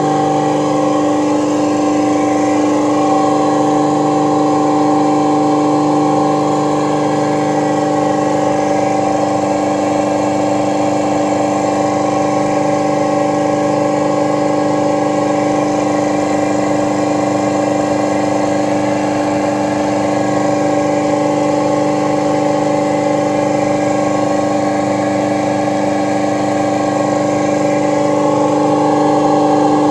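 Rewound 35 hp Copeland semi-hermetic reciprocating refrigeration compressor running steadily on test after repair: a loud, even hum with a strong mid-pitched tone.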